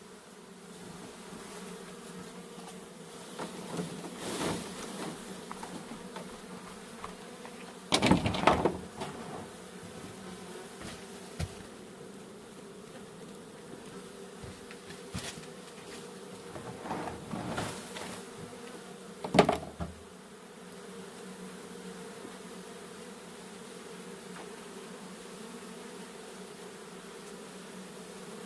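Honey bees buzzing in a steady mass, with a few bumps and scrapes of handling, the loudest about eight seconds in and again a little before twenty seconds.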